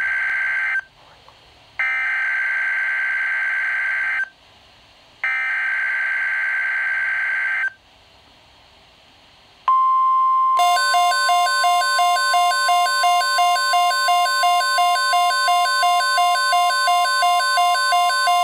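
NOAA Weather Radio SAME alert on a Midland weather alert radio: the end of one digital header burst and then two more, each a buzzy data screech of about two and a half seconds with short pauses between. About ten seconds in, the steady 1050 Hz warning alarm tone starts, and the radio's own rapidly pulsing alert beeps join it a second later, signalling a severe thunderstorm watch.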